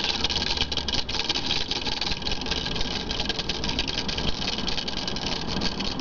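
Small homemade magnet motor spinning fast, switched by a homemade paper-clip reed switch, making a steady, rapid rattling buzz. The switch is set close to the rotor magnets, which runs the motor at its higher speed.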